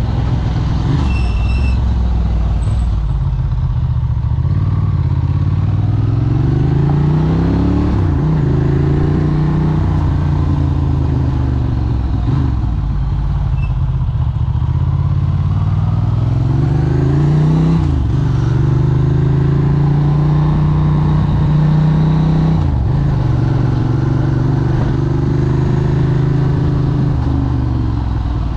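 Capello SP78 moped engine running under way, its pitch climbing steadily and then dropping back sharply about four times before climbing again.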